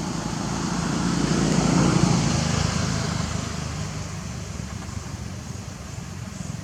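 A motor vehicle passing by, its engine and road noise getting louder to a peak about two seconds in, then fading away.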